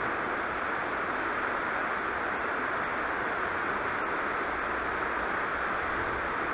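River water rushing steadily over a shallow, rocky riffle.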